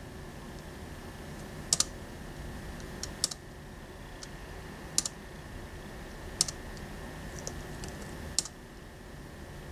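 Single key presses on a Dell Latitude laptop keyboard, about seven separate sharp clicks spaced a second or more apart, a couple in quick pairs: keys tapped one at a time to step through on-screen menus.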